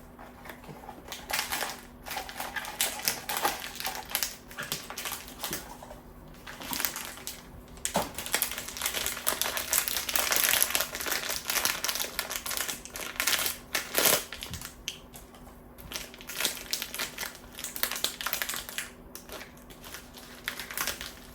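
A cardboard Pop Mart blind box and its packaging being handled and opened by hand: irregular rustling, crinkling and small clicks, busiest about halfway through, with a sharp louder crackle a few seconds later.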